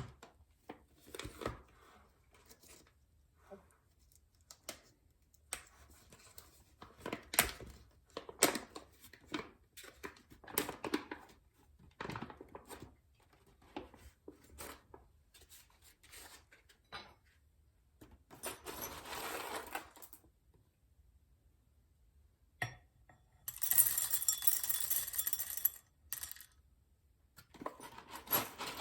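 Coffee beans clattering and cracking in a Kalita hand coffee grinder: scattered sharp clicks and rattles at first, then three stretches of continuous crunching as the crank is turned and the beans are ground, the middle stretch the loudest.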